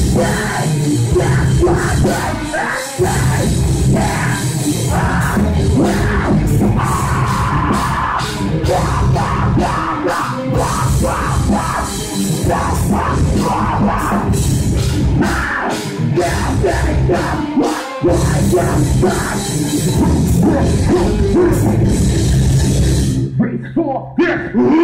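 Heavy metal band playing live, heard as a room recording: distorted electric guitars, bass and a drum kit, with a shouted vocal over them. Near the end the band stops for a moment, then comes back in.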